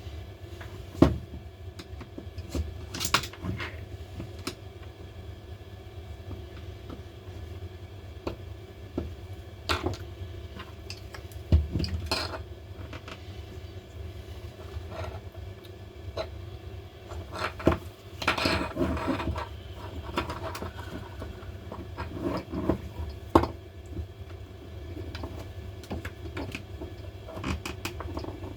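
Irregular light clicks, taps and short scrapes of small metal and plastic parts and hand tools being handled while an impact driver is dismantled on a bench, over a steady low hum.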